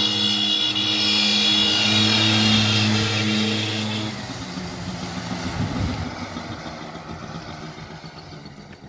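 ATV engine running at a steady speed, loud and even-pitched. About four seconds in it drops suddenly, and a quieter engine sound fades away.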